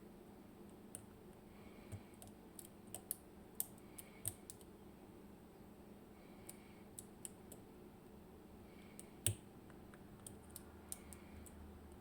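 Faint, irregular small clicks of a lock pick working the finger pins of an IKON SK6 Radienprofil Extra Code cylinder, the loudest click about nine seconds in.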